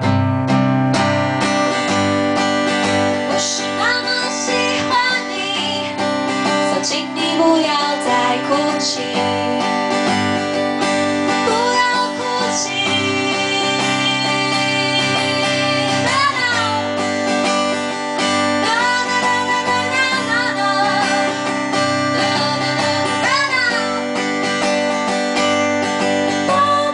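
A woman singing while playing an acoustic guitar, strumming chords under a wavering sung melody.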